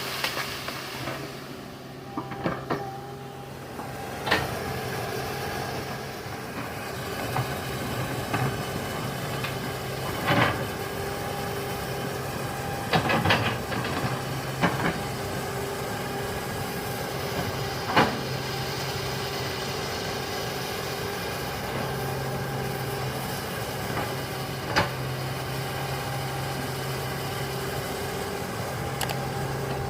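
Hydraulic excavator's diesel engine running steadily while it digs, with sharp metallic clanks every few seconds.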